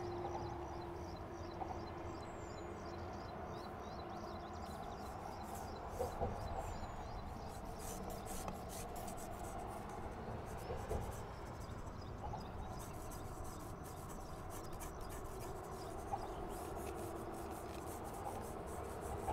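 Faint rubbing and scratching as a drawing tool is moved in short strokes over watercolour paper.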